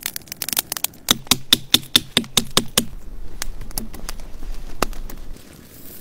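Wood fire crackling, then a quick run of about nine sharp knocks, about five a second, as a knife blade strikes wood on a stump, with one more knock near the end.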